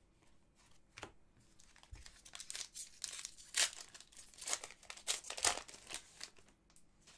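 A hockey card pack's wrapper being torn open and crinkled: a run of irregular crackly rustles from about two seconds in until near the end, after a single soft rustle about a second in.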